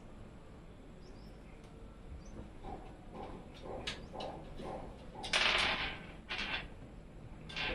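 Packaging being handled during an unboxing: scattered rustles and light knocks, with the loudest rustle lasting about a second, about five seconds in.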